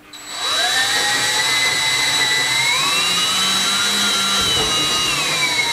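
Cordless drill running steadily, drilling a pilot hole into the timber so the screw won't split the wood. Its motor whine rises in pitch about halfway through and starts to fall near the end.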